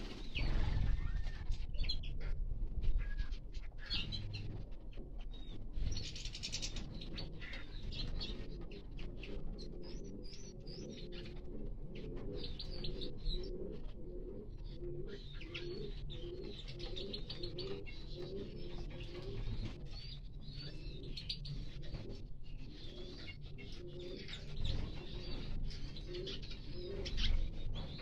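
Wings flutter as a small finch takes off at the start, then pigeons coo in runs of short, repeated low notes while small songbirds chirp and tweet throughout.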